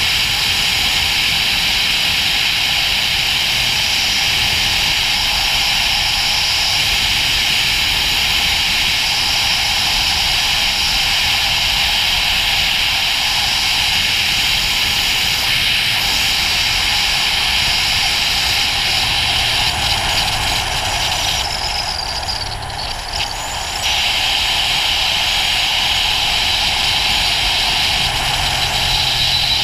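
Riding on a Ducati GT1000, with a steady rush of wind over the microphone and the bike's air-cooled V-twin running low underneath. The wind rush eases for a couple of seconds about three-quarters of the way through, then returns.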